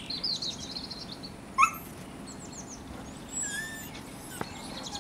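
A dog gives one short, high yip about one and a half seconds in, while small birds chirp and sing in the background.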